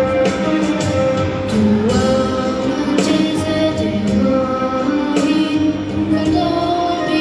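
A boy singing an Albanian song into a hand-held microphone over loud instrumental accompaniment with drum hits.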